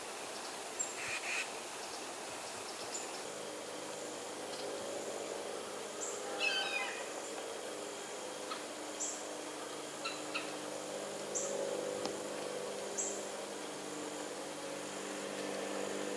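Wild birds calling: short high chips repeated every couple of seconds, and a louder call about six seconds in that zigzags down in pitch. Under them runs a faint steady low hum.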